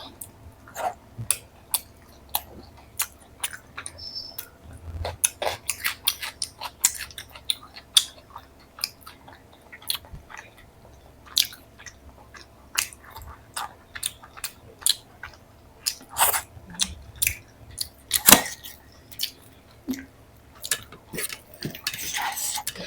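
Close-miked chewing and mouth sounds of someone eating paneer curry with lachha paratha: a steady run of wet clicks and smacks, several a second.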